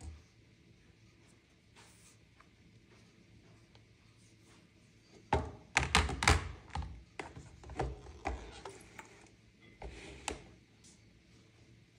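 Smartphones being set down and handled in empty plastic tubs: a quick run of knocks and taps starting about five seconds in, thinning out after about ten seconds.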